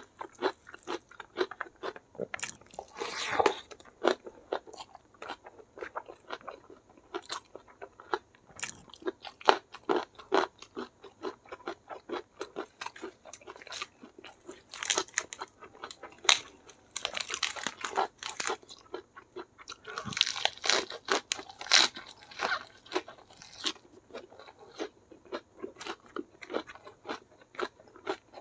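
Close-miked mukbang chewing: a person eating rice and side dishes by hand, with wet chewing and sharp crunching bites of raw lettuce and other fresh vegetables. The crunching comes in louder spells, one a few seconds in and several in the second half.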